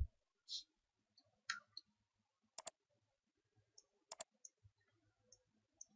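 A few faint clicks from working at a computer in near silence. The sharpest are two quick double clicks, about two and a half and four seconds in.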